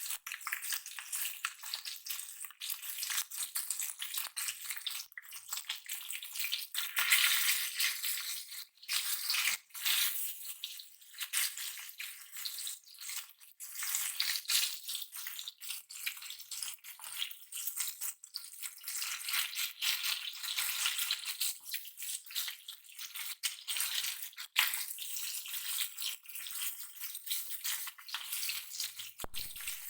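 Small fish shallow-frying in hot oil in a flat pan, sizzling and crackling unevenly.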